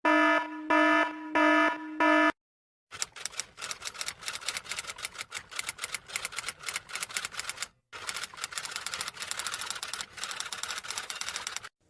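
Four short, evenly spaced buzzer beeps, then after a short pause a long run of rapid typing clicks, about nine seconds, with a brief break near the middle.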